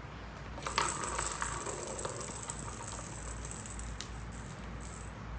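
A cat's plastic track toy with a spring-mounted mouse jingling and rattling as the cat plays with it. It starts about a second in with a burst of quick clicking jingles, then tapers off with a single click near the end.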